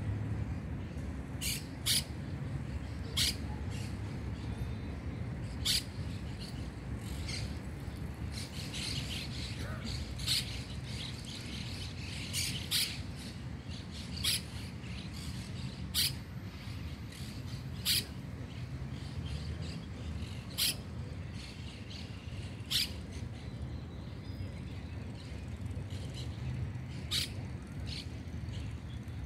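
Birds chirping: short, sharp calls every second or two, busier for a few seconds in the middle, over a steady low rumble.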